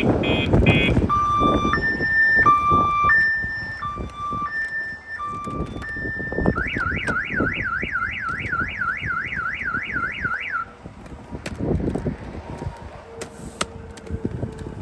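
Multi-tone car alarm siren sounding on a Honda: rapid beeps, then two tones alternating about once a second, then a fast up-and-down warble, cutting off about ten and a half seconds in. It has been triggered and cannot be silenced until a key is programmed to the car. Low knocks and handling clatter run under it and on after it stops.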